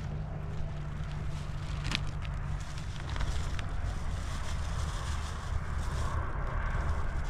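Wind rumbling on the microphone, with a few sharp crinkles of a plastic food bag being handled.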